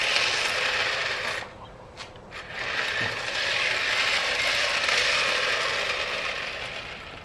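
Toy RC car's electric motor and gearbox whirring as it drives, cutting out about a second and a half in with a few clicks, then starting up again and fading near the end.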